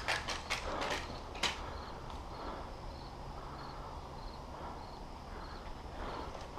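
Insects chirping faintly, a short pulse repeating about twice a second, over a low rustle. A few sharp snaps sound in the first second and a half.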